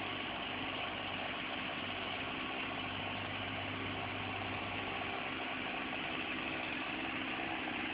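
Engine idling steadily, with a low hum that drops away about five seconds in.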